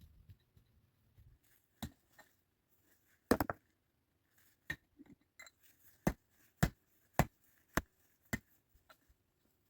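Sharp knocks of a tool striking wood: a quick cluster of blows about a third of the way in, then five evenly spaced blows at roughly two a second.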